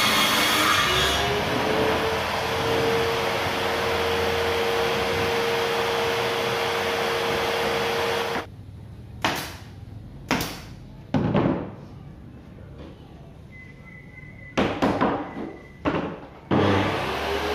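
Table saw running with a steady whine while a panel board is fed through it. It cuts off suddenly about halfway through, followed by several sharp knocks and clatters of boards being handled. Near the end the saw starts up again, its whine rising as it comes up to speed.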